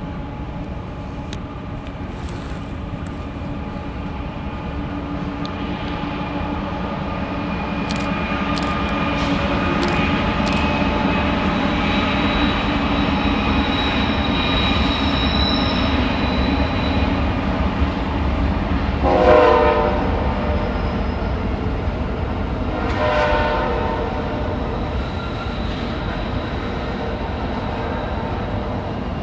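Freight train with diesel locomotives passing, the engines running and the rumble growing louder towards the middle. About two-thirds of the way through come two short blasts of the locomotive horn, the second weaker than the first.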